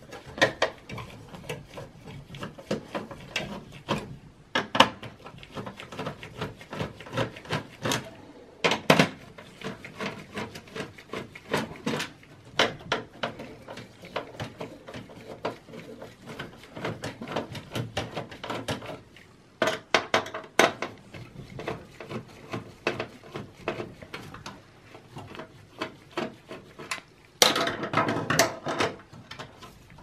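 Scattered clicks, knocks and rattles of cable connectors being unplugged and wires handled inside an HP Compaq Pro desktop's metal case, with a longer scraping rustle near the end.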